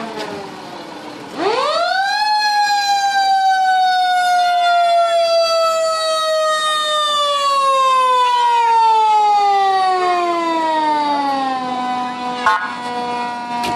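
Fire truck siren: it winds up quickly about a second in to a high wail, then falls slowly in pitch over the next ten seconds and settles lower near the end. A single sharp knock sounds near the end.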